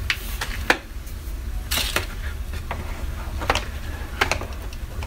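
A window shade's headrail being handled and pushed up into its mounting brackets: a few scattered clicks and knocks over a low steady rumble.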